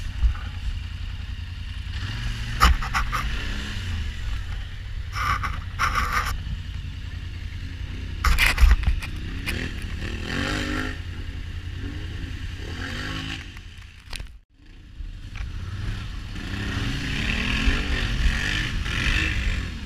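Off-road vehicle engine, ATV or side-by-side, running and revving, with scraping and clattering knocks and a constant low rumble. The sound drops out briefly about two-thirds of the way through.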